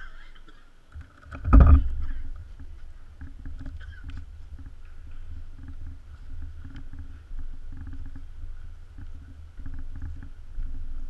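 Low rumbling handling and wind noise on a GoPro mounted on a hexacopter frame as it is carried along, with one loud knock about one and a half seconds in.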